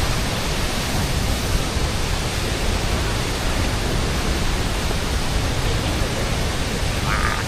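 Waterfall rushing steadily in heavy flow. A brief pitched sound comes in near the end.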